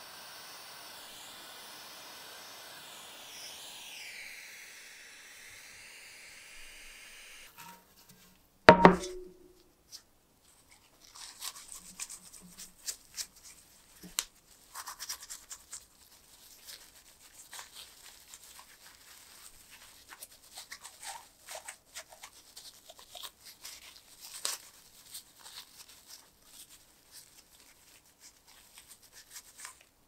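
Mini torch flame hissing steadily while it heats a brass lighter tank; it stops suddenly about seven seconds in. Just under two seconds later comes one loud, sharp knock, then scattered light rubbing as a cloth soaked in acetone wipes the brass lighter parts.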